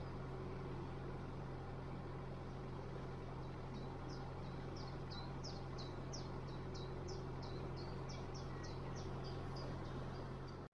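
Narrowboat's diesel engine running steadily at cruising pace, a low, even hum. From about four seconds in, a songbird sings a long run of short high notes, about three a second.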